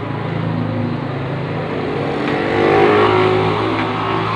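A steady motor hum that swells briefly about two to three seconds in.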